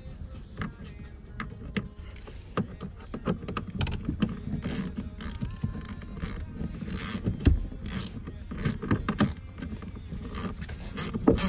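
T20 Torx screws being driven by hand into a plastic lower dash trim panel: irregular clicks, scrapes and rattles of the driver and the panel.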